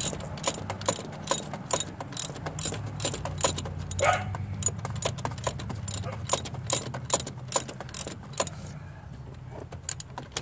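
Hand ratchet clicking in short, even strokes, about two and a half clicks a second, as the thermostat housing bolts are run down; the clicking stops about three quarters of the way through, with a few more clicks near the end. A steady low hum sits underneath.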